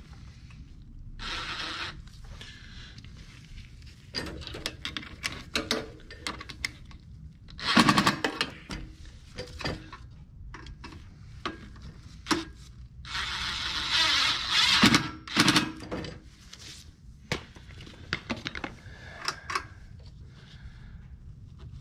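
Hand tools and metal parts clicking, knocking and scraping while a carburetor is bolted back onto a small Tecumseh engine's intake manifold. Irregular sharp clicks are mixed with a few short rasping bursts, the loudest about 8 and 14 seconds in.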